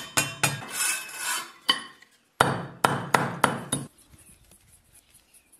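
Hammer striking coils of iron wire wound on a wooden dowel, against a brick floor, to shape them into rings: about ten sharp blows in two runs, stopping about four seconds in, followed by faint small clicks of the wire being handled.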